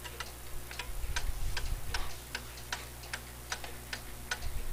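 Jauch J77 brass grandfather clock movement ticking, about two to three ticks a second. The tick-tock is still slightly uneven: the clock is not yet in beat while the beat is being adjusted on the pendulum leader.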